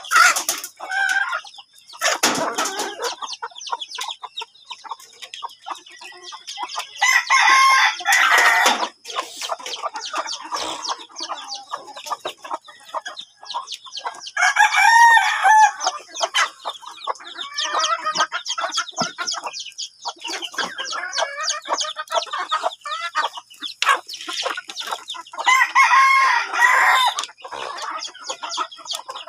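A flock of chickens clucking steadily, with a rooster crowing three times: about seven seconds in, near the middle, and toward the end.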